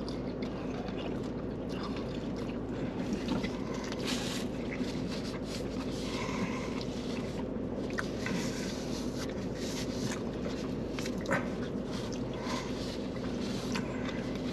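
Steady low hum of a vehicle, heard from inside, with a few faint clicks scattered through it.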